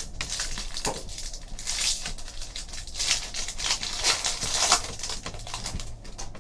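Trading card packs and cards being handled: crinkling pack wrappers and cards rustling, in several bursts.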